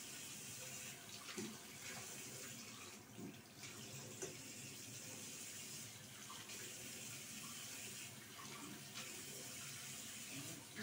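Bathroom sink tap running steadily into the basin, with a few soft splashes as a hand dips into the stream.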